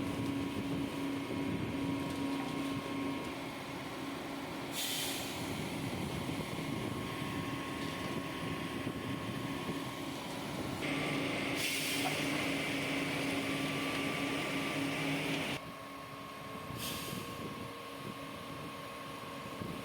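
Engine of heavy construction machinery running steadily, with short hisses of air about five, twelve and seventeen seconds in. The engine sound drops in level about fifteen and a half seconds in.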